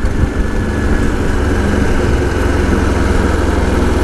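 Vehicle engine running at a steady speed while travelling along a paved road, a low, even hum with no change in pitch.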